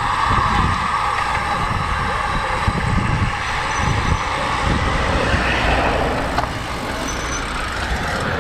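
Steady running noise of a moving motor vehicle: a continuous low rumble under an even rushing noise, easing slightly after about six seconds.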